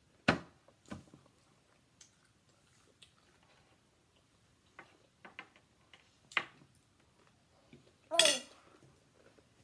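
A metal fork clinking and scraping on a glass plate, a few scattered sharp clinks with the loudest just after the start. Near the end comes a short vocal sound.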